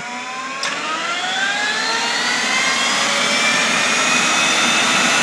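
RU-19A-300 turbine engine spooling up during a start, its whine rising steadily in pitch and loudness. A sharp click sounds about two-thirds of a second in.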